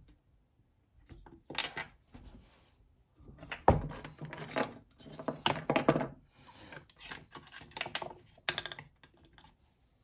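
Hands and a small tool working on a Partner 350 chainsaw's plastic housing on a wooden workbench: irregular clicks, scrapes and knocks, starting about a second and a half in and busiest in the middle.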